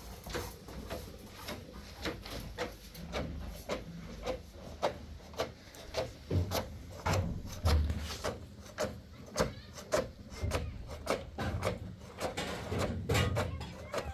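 Repeated scraping strokes in a steady rhythm, about two to three a second.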